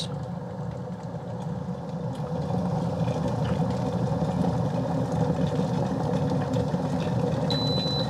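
Llivekit glass electric kettle coming to the boil: the steady noise of the water boiling, growing louder about two seconds in, with a short high beep near the end.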